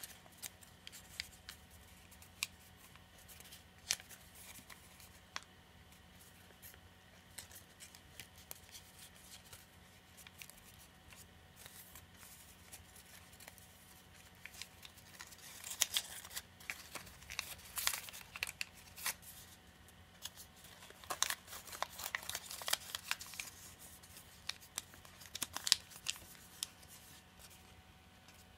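A sheet of origami paper being folded and creased by hand, making scattered crinkles and crackles. The crackling grows busier and louder over the middle to later part as the pleated shell is shaped.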